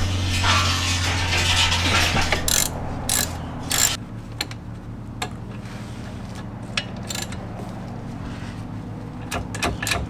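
Socket ratchet wrench clicking steadily for about four seconds, then a few separate clicks and knocks of tools being handled.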